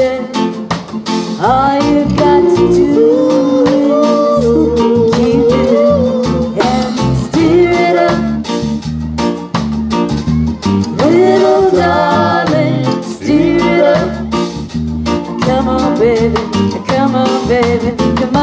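A woman singing lead with a live reggae band, over a heavy bass line, keyboards and a steady beat.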